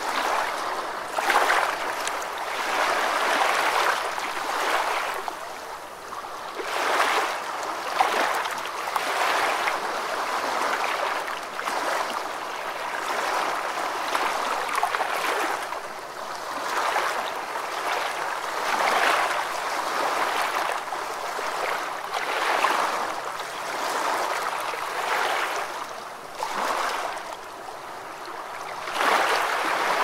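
Moving water: a steady rushing and splashing that swells and eases every couple of seconds.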